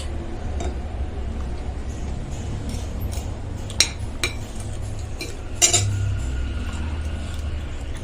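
Cutlery clinking against a soup bowl while eating: a few sharp clinks, the loudest a little past halfway, over a steady low hum.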